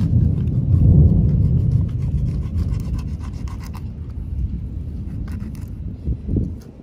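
Knife blade scraping the scales off a whole flounder on a wooden cutting board: a steady, rough rasping that is loudest in the first two seconds, with two short knocks near the end.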